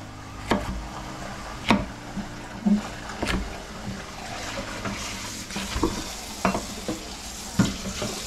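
A utensil stirring food in a pan, knocking against the pan about once a second or so, over a faint sizzle of frying.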